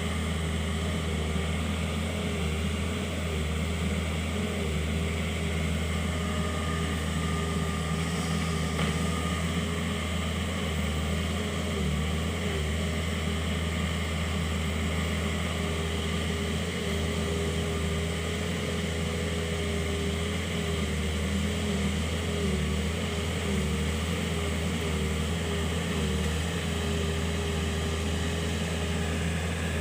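Kobelco SK50P mini excavator's diesel engine running steadily, with a faint whine that wavers in pitch.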